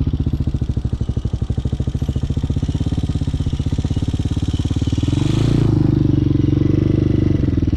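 Small single-cylinder motorcycle engine running at low revs with a steady pulsing beat during slow, tight turns. About five seconds in it revs up and holds higher, then eases back off near the end.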